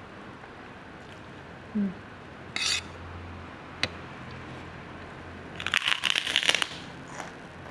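Tableware clinking: a few separate light clicks, then a short clattering rattle about six seconds in, the loudest part.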